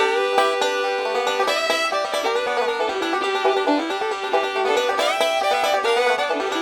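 Background music: a fast picked banjo tune in bluegrass style.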